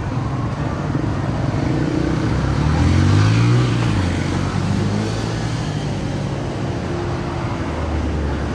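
A Honda motorcycle engine idling, revved once about two to three seconds in, its pitch rising to a peak and falling back to a steady idle.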